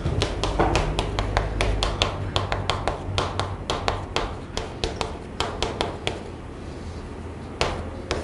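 Chalk tapping and scraping on a chalkboard as words are written: a quick run of sharp taps, about four or five a second, that thins out after about six seconds, over a steady low hum.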